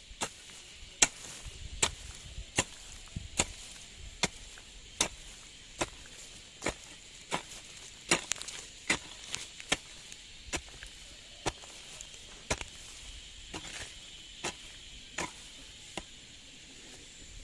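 Hand tool chopping at a steady pace in garden land, about twenty sharp strikes, one a little more often than every second.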